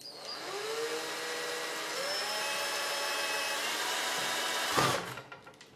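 Cordless drill boring a pilot hole through a rifle stock. The motor speeds up over the first second, then runs steadily. It stops about five seconds in, just after a brief louder burst.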